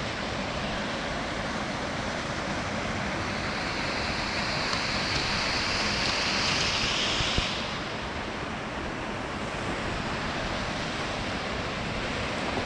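Small waterfall on a stream: a steady rush of falling water. It grows brighter and louder for a few seconds in the middle and eases back about seven and a half seconds in.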